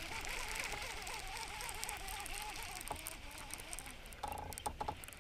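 Baitcasting reel being cranked to retrieve line, its gears whirring with a wavering pitch for about three seconds, then a short burst of the same whir a little after four seconds in.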